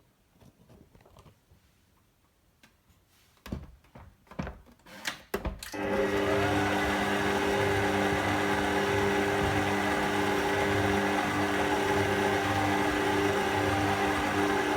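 A few clicks and knocks as a dough hook is fitted to a stand mixer. About six seconds in, the mixer's motor starts and runs with a steady hum, kneading bread dough with a pulsing low churn.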